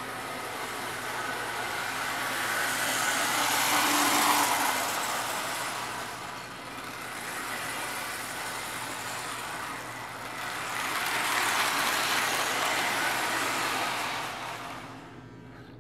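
Vintage 1950s Lionel toy train running on its track, the motor and wheel noise swelling as it passes close, about four seconds in and again about twelve seconds in, over a steady low hum.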